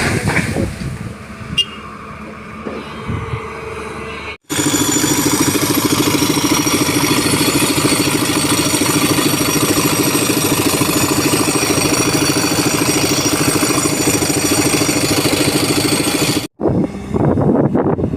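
Excavator engine running steadily at a constant speed for most of the stretch, beginning and ending with abrupt cuts. Shorter stretches of uneven machine noise come before and after.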